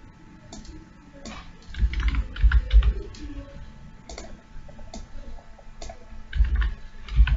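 Computer keyboard typing: two short bursts of keystrokes, about two seconds in and again near the end.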